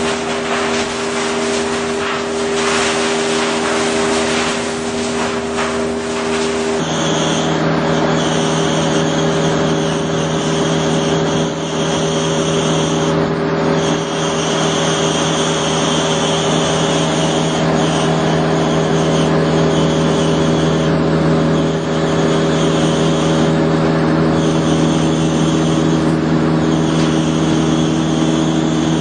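Woodchip vertical grinder and disc screen machinery running steadily, a loud mechanical hum made of several steady tones. About seven seconds in, the hum shifts abruptly to a different set of pitches, and a high whine then keeps coming and going every couple of seconds.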